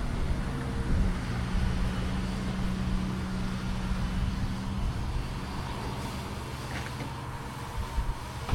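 A vehicle engine running with a steady low hum that holds one tone for the first few seconds and then fades into the general road noise.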